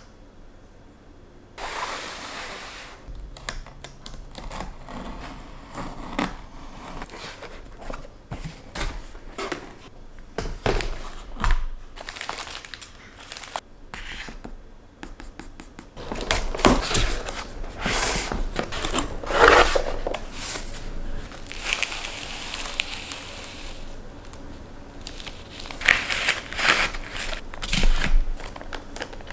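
Crinkling, rustling and tearing of material being handled, broken by scrapes and clicks, with louder, busier stretches about halfway through and again near the end.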